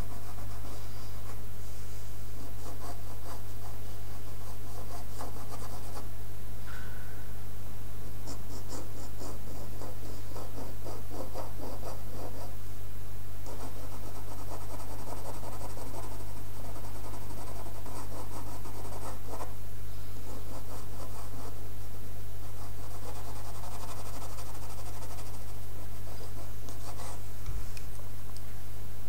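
Pencil tip scratching across paper in quick back-and-forth shading strokes, in spells with short pauses, over a steady low hum.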